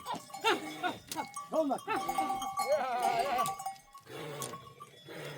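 A herd of goats bleating, several short wavering calls overlapping, with a livestock bell clanking and ringing among them.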